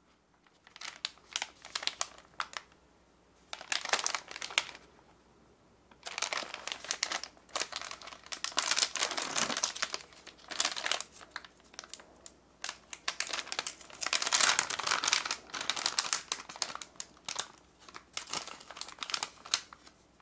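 Foil-lined plastic snack pouch crinkling in the hands as it is picked up and opened. The crinkling comes in repeated bursts with short pauses between them.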